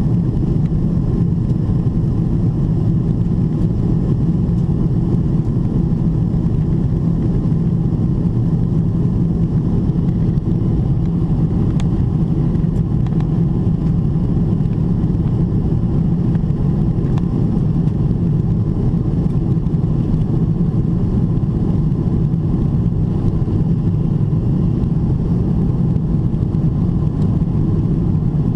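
Steady low drone inside the cabin of a Boeing 777-300ER in climb: its GE90-115B turbofans and the air rushing past the fuselage.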